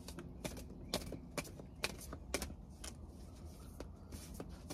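Faint, irregular light clicks and taps, a couple a second, over a low steady hum.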